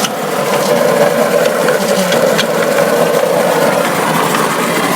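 2002 Honda Insight's failing CVT transmission scraping and rattling steadily, with scattered sharp ticks, as the car idles in drive with the parking brake on. The owner takes the sound for something broken inside the transmission scraping around.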